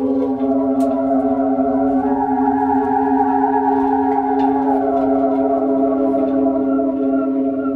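Corrugarou's crank-driven fans whirling ridged corrugated tubes, which hum a chord of several steady tones. The higher tones swell louder for a few seconds in the middle as the cranks turn.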